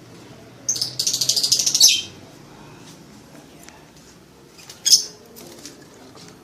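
Lovebird in mating season singing: a rapid, shrill chattering run of notes lasting about a second, then a single sharp call near the end.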